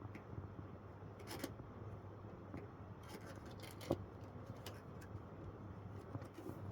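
Faint handling noises over a low steady hiss: a few scattered light clicks and rustles, the loudest a single knock about four seconds in.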